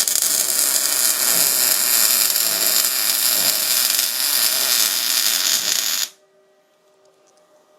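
MIG welder arc crackling steadily while laying a weld bead, running about six seconds and then stopping abruptly when the trigger is released.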